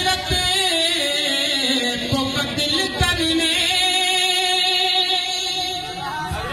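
A man singing a naat, unaccompanied, into a microphone, drawing out long wavering notes in a melismatic line.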